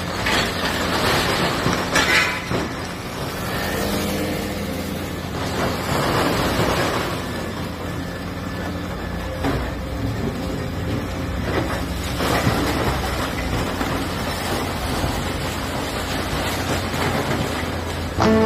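Diesel engine of a Doosan excavator running steadily as it demolishes a building, with louder surges of noise every few seconds.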